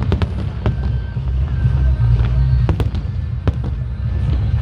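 Fireworks display: a quick run of sharp bangs in the first second and a few more about three seconds in, over a deep continuous rumble of shell bursts.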